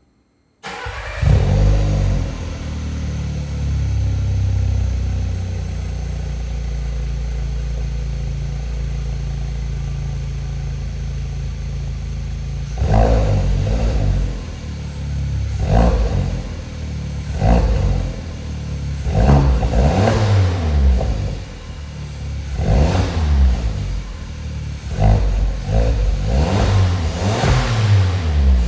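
VW Golf 7 1.2 TSI's turbocharged four-cylinder petrol engine through a Remus aftermarket exhaust, starting up with a brief flare about half a second in, then idling steadily. From about halfway on it is blipped in a series of about ten short revs, each rising and falling back to idle.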